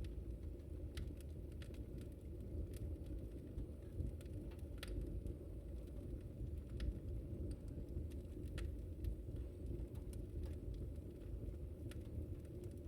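Wood fire burning: a steady low rumble of flames with irregular sharp crackles and pops from the burning wood, roughly one a second.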